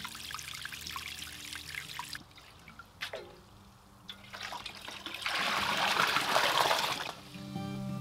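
A small submersible pump trickling and splashing in a plastic tub of liquid fertilizer. About three seconds in a metal watering can knocks against the tub, and from about five seconds in water rushes and gurgles into the can as it is dipped and filled for about two seconds.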